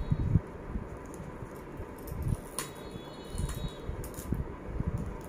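Close handling noise from hands folding a paper cone and pushing a toothpick into it: soft low bumps and rustles, with one sharp click about two and a half seconds in.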